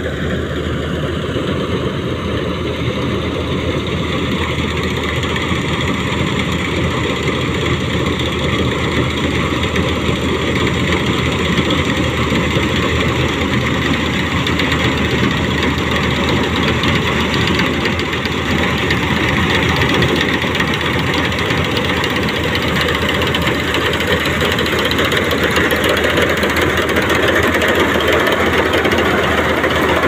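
Guru Nanak 985 combine harvester running steadily while cutting wheat, its engine and threshing machinery growing gradually louder as it comes close.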